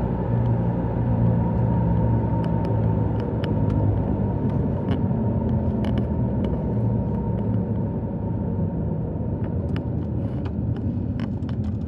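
Car driving on the road, heard from inside the cabin: a steady rumble of engine and tyres, with a few faint clicks.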